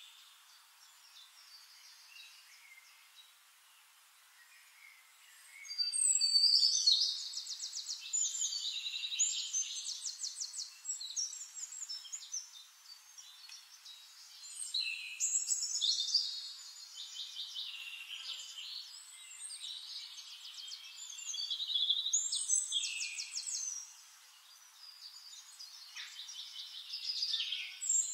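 Small birds chirping in quick, high trills, in several runs after a quieter start, with a short lull near the end.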